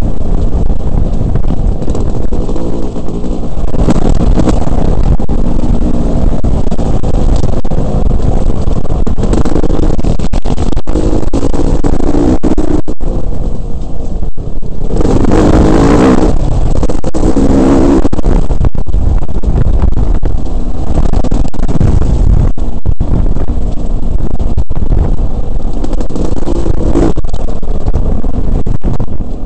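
Dirt bike engine running loud under way, with the pitch shifting as the rider works the throttle and a stronger rev-up around the middle. Frequent sharp knocks from the bike jolting over the rough gravel road run through it.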